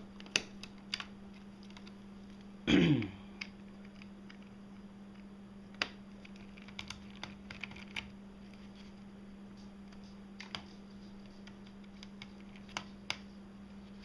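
Small screwdriver and screws clicking and tapping against a netbook's plastic case in scattered light clicks over a steady low hum. About three seconds in, a brief louder sound falls in pitch.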